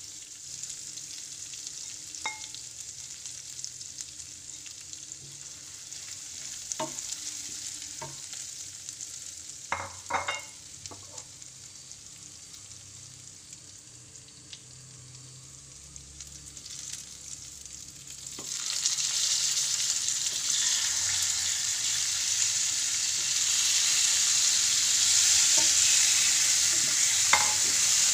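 Spice paste and whole spices sizzling in oil in a pan, with a few sharp knocks of a wooden spatula. About 18 seconds in the sizzling grows much louder as raw chicken pieces hit the hot oil and are stirred.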